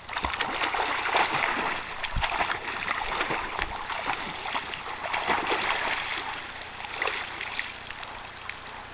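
A dog splashing through shallow river water as she wades and swims, a continuous run of splashes and sloshing.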